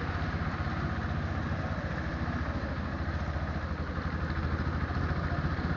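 Motorcycle engine running steadily at an even speed, with no revving.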